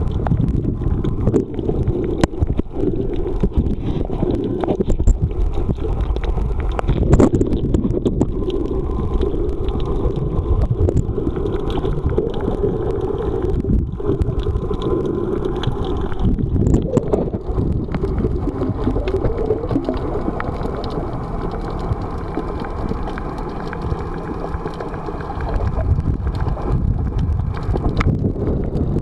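Muffled underwater noise picked up by a camera in a waterproof housing: a steady low rumble of moving water with scattered clicks.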